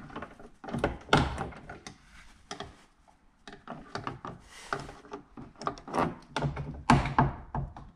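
Plastic door trim panel clips of a Fiat Grande Punto being levered out of the door with pliers: an irregular run of sharp clicks and knocks as the pins pop free and the panel shifts, with the loudest snaps about a second in and near the end.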